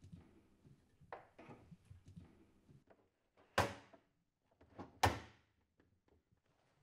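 Bath cabinet being pushed into place under the bath against its metal frame: a few light knocks, then two sharp thunks about a second and a half apart as the cabinet meets the frame, which it fixes to by magnets.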